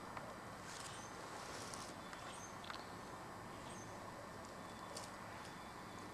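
Quiet backyard ambience: a steady low hiss with a few faint, brief high chirps, likely small birds in the distance, and scattered light ticks.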